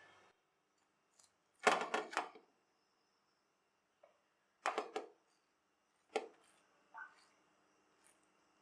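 Knife chopping vegetables on a cutting board, in short runs of quick knocks with pauses between them.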